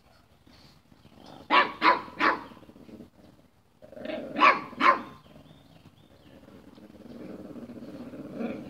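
Dogs barking in rough play: three sharp barks about a second and a half in, two more around four and a half seconds, then a long low growl that swells near the end.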